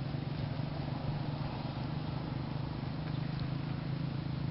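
Steady low engine hum over a constant outdoor hiss.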